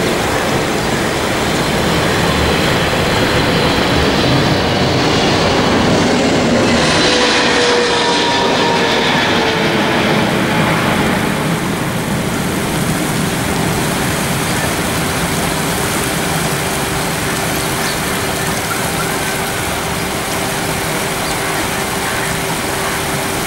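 Boeing 777's twin jet engines passing low on landing: loud, steady engine noise with whining tones that slide down in pitch as it goes by. It is loudest about six to eight seconds in, then eases slightly after about twelve seconds into a steady hum with one held tone.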